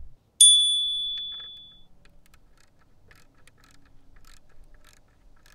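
A metal tool clinks once with a sharp, high ring that dies away over about a second and a half. Faint irregular clicking follows as a socket ratchet works the radiator guard's mounting bolt.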